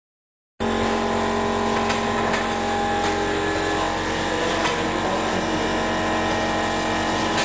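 Induction heating machine running while it heats a bar in its coil: a steady electrical hum with several constant tones over a rushing noise. It starts abruptly about half a second in.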